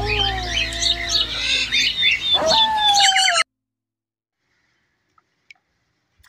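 Wolf howling in long, smooth drawn-out glides, one sliding down and then a second rising and falling, with birds chirping around it. The sound cuts off abruptly about three and a half seconds in.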